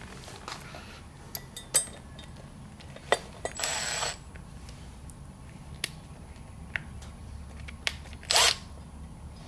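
Cordless impact wrench with a 7/16 socket running the end-cover bolts into a Gast rotary vane aerator, in two short bursts about half a second long, about 3.5 s in and about 8.3 s in. Sharp clicks of the socket and metal parts come between the bursts.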